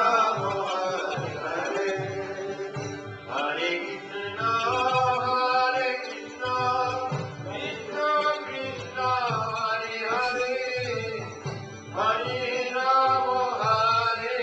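Devotional kirtan: voices singing a Vaishnava chant in long, sliding held notes over a steady low beat.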